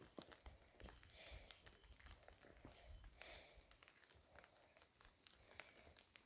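Near silence: faint outdoor ambience with scattered small clicks and ticks.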